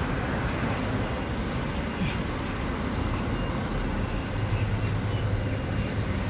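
Steady low rumble of street traffic and idling car engines, with a few faint high chirps a little past the middle.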